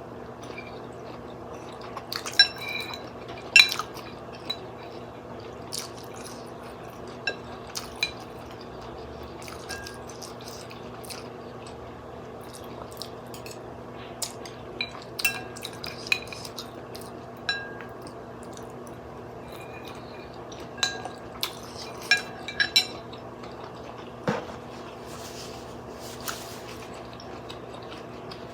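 Metal utensils clinking against a bowl of noodle soup: scattered sharp clinks, some ringing briefly, with a few liquid sounds, over a steady low hum.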